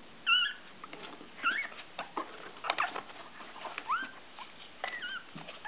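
Newborn Miniature Pinscher puppy squeaking: about four short, high cries, some rising and some falling in pitch, with paws scratching and pattering on the paper bedding.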